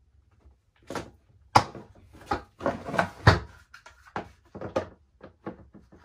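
Hard plastic knocks and clicks as caster-wheel brackets are pushed and snapped into the base of a Ridgid shop vacuum's plastic drum. Two louder clacks come about a second and a half in and just after three seconds, then a quick run of lighter clicks.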